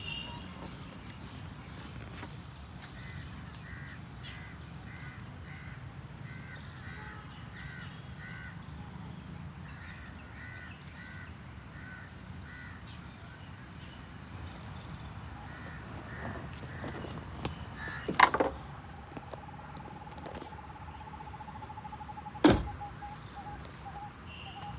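Birds calling: one bird repeats a short call in quick series, about two a second, over faint high chirping. Later come two sharp knocks, a few seconds apart, and a steady tone lasting several seconds.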